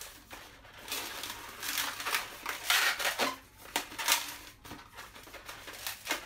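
Long latex modelling balloons rubbing and squeaking against each other and the hands as they are twisted and tied into a lock, in a run of rustling, scraping bursts with a few short squeaks near the middle.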